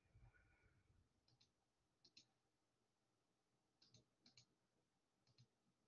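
Near silence with about five faint, sharp clicks, most of them in quick pairs.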